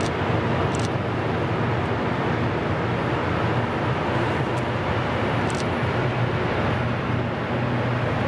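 Freight train of coal wagons hauled by a diesel locomotive rolling past, a steady rumble with a low hum and a few sharp clicks.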